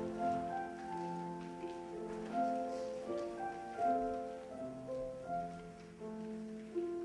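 Keyboard instrument playing slow held chords alone, the notes changing about once or twice a second, with no voices singing.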